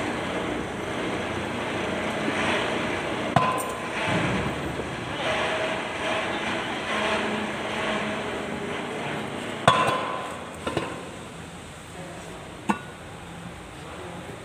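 Metal clinks and knocks of steel tractor axle parts and tools being handled, with three sharp ringing strikes spread through, the loudest just past the middle, over steady background noise.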